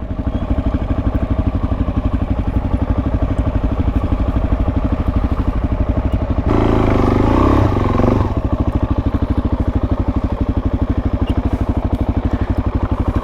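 Suzuki DR-Z400S single-cylinder four-stroke engine idling with a rapid, even pulse. It grows louder for about a second and a half, a little past the halfway mark.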